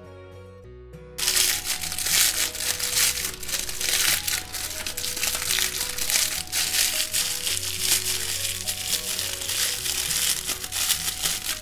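Clear crinkle paper being crumpled and fluffed by hand into a crinkle ball, a continuous loud crinkling that starts about a second in.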